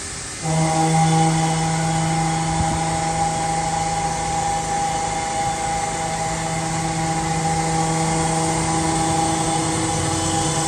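Walter face mill on a CNC mill cutting a cast iron fixture plate, entering the cut about half a second in with a steady pitched ringing tone. This is the chatter that the machinist puts down to harder areas in the casting, cut with inserts made for steel rather than cast iron.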